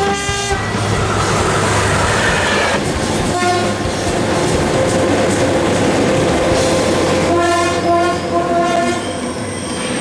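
Horns of passing trains sounding several times over the steady rumble of the trains running by. A chord ends about half a second in, a short blast comes near the middle, then a long steady note, and a loud multi-tone chord sounds near the end.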